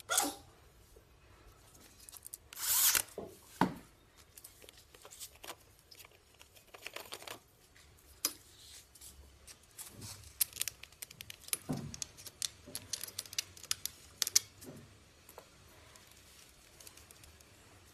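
A patio umbrella's plastic upper hub and aluminium ribs being handled, giving scattered clicks and knocks of plastic and metal. The loudest moment is a brief scrape about three seconds in, and there is a busier run of clicks in the second half.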